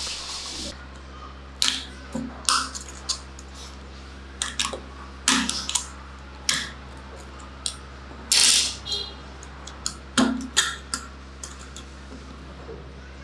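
Plates and parts of a Vespa scooter clutch being fitted into the metal clutch basket by hand: a dozen or so short metallic clicks and clinks at irregular intervals, with one longer scrape about eight seconds in.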